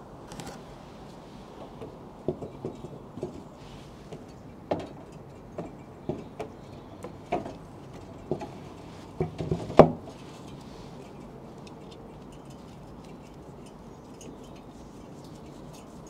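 Fan blade of an air-conditioning outdoor unit knocking and clicking as it is handled and fitted onto the fan motor shaft: a run of irregular knocks starting about two seconds in, the loudest a sharp knock a little after the middle, then only a steady background hiss.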